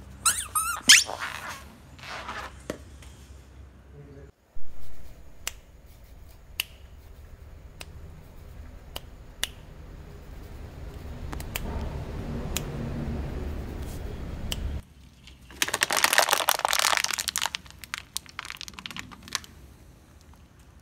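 Rubber ducks squeaking in high, wavering squeals as a car tyre presses them flat. After a low steady rumble in the middle, plastic packaging crackles and crunches for a couple of seconds under the tyre.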